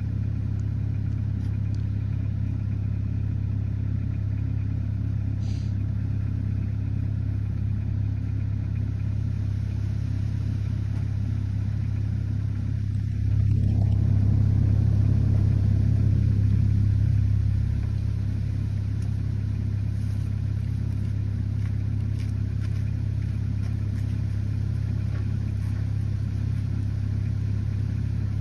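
Caterpillar mini excavator's diesel engine running steadily with a low, even hum, growing louder for about four seconds midway before settling back.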